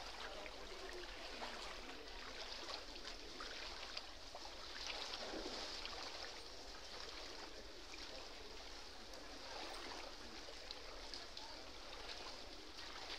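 Street floodwater sloshing and splashing around legs wading through it: a continuous watery wash broken by many small splashes.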